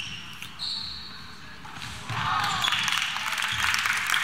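Indoor basketball game sounds: short high squeaks, typical of sneakers on the court floor, in the first half-second, then about two seconds in a louder spell of mixed voices and court noise.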